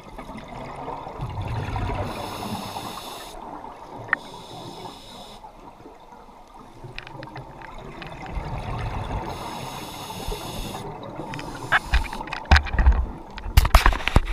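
Scuba diver breathing through a regulator underwater: hissing breaths that switch on and off, alternating with a low bubbly rush of exhaled air. A series of sharp knocks comes near the end.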